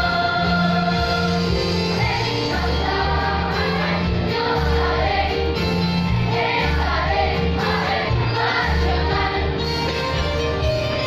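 School choir of children and adults singing together, over low sustained bass notes that change every second or so.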